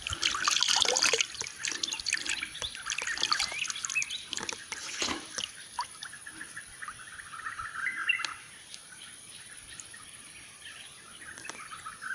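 Songbirds chirping and twittering in quick runs, densest in the first second or so, over water trickling and dripping in a small stream.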